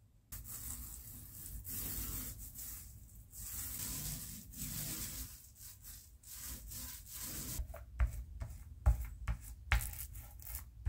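A paint brush and then a small paint roller stroking over the painted wooden side of a dresser: a scratchy rubbing in repeated strokes. About seven and a half seconds in come several sharp knocks, the loudest sounds here.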